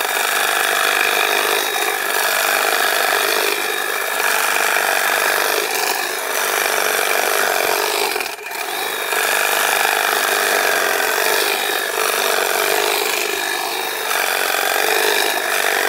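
Handheld power hedge trimmer running steadily, its reciprocating blades cutting grass close to the ground, with a brief dip in the sound about eight and a half seconds in.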